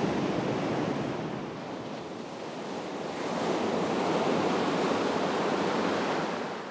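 Gulf surf washing onto a beach: a steady roar of breaking waves that eases about two seconds in, swells again, and drops off near the end.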